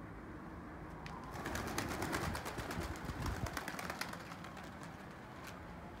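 A flock of domestic pigeons taking off together: a dense flurry of wingbeats and wing claps starting about a second and a half in, lasting about three seconds, then fading as the birds climb away.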